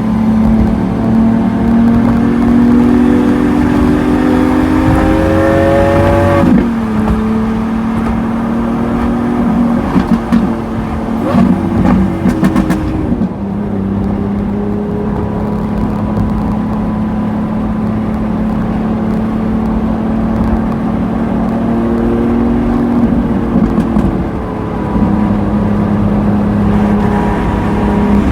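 Lamborghini Aventador S's V12 through a Power Craft exhaust, pulling up through the revs for about six seconds and then dropping sharply off the throttle. A run of exhaust crackles and pops follows around ten to thirteen seconds in. The engine then runs steadily before a second, shorter pull and drop, with more crackles near the end.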